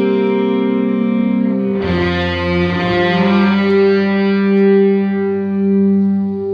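Instrumental music of sustained, effect-laden chords. About two seconds in it changes to a long held chord that swells gently.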